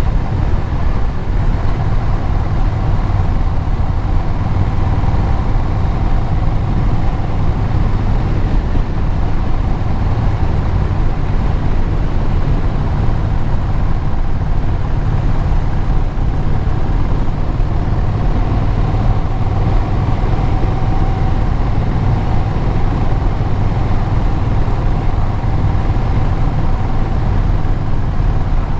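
Vehicle engine and exhaust droning steadily while cruising at an even speed, with road and wind noise.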